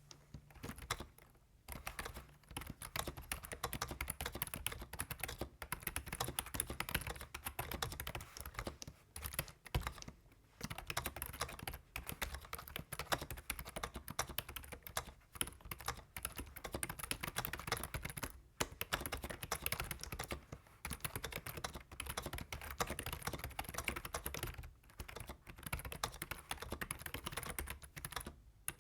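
Continuous fast typing on a Logitech Wave Keys ergonomic membrane keyboard: a dense run of key presses, broken by a few brief pauses.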